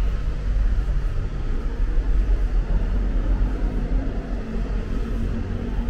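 Road traffic heard as a steady low rumble, with no distinct events standing out.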